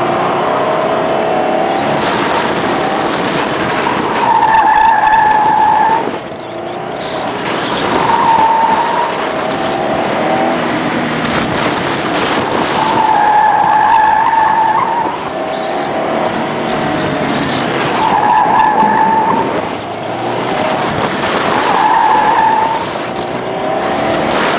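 Car engine running hard and revving up and down, with the tyres squealing five times for one to two seconds each as the car is pushed through the corners of an autocross course.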